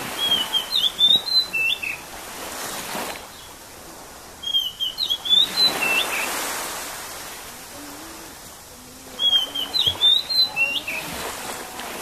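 A songbird sings the same short whistled phrase of several notes three times, about four seconds apart, over the soft wash of small waves lapping the beach.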